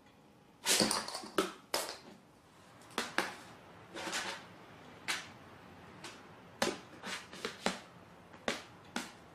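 A cat at play, making irregular sharp taps, knocks and short scuffles, about a dozen in all; the loudest cluster comes about a second in.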